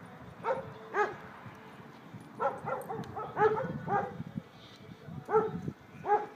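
Dogs barking in short clusters of sharp barks, about a dozen in all with pauses between the groups: alert barking at a man walking past whom the dogs have scented.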